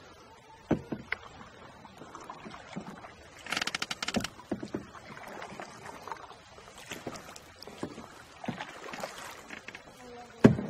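Canoe paddling: paddles dipping and splashing in the water and knocking now and then against the canoe hulls, with a sharp, louder knock near the end.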